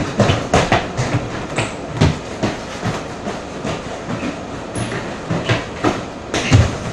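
Irregular thumps and knocks of feet running, jumping and landing on a floor during ball play, a few a second, with heavy landings about 2 seconds in and near the end.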